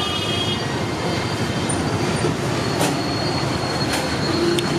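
Deep-frying in a large iron kadai of hot oil: a steady sizzling, rushing noise with a faint high whine, and a few sharp clicks about three and four seconds in.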